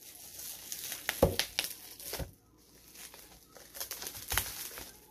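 Plastic bubble wrap crinkling and rustling as it is pulled open by hand, with a few sharp crackles along the way.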